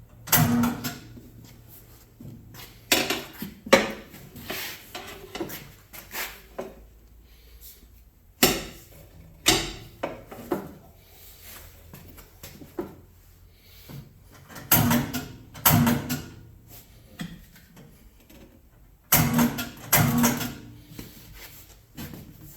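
Irregular knocks, clacks and scrapes of tire-mounting work: tools and the tire bead working against a motorcycle wheel rim on a manual tire changer, with several sharp knocks in pairs.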